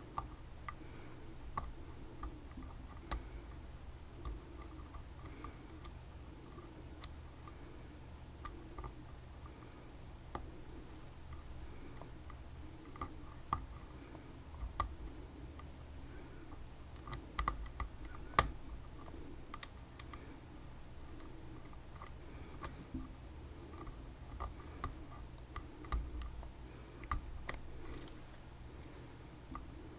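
Small irregular metal clicks and ticks of picking tools working inside a ChiLock, a Chinese copy of a BiLock, with a low steady hum underneath.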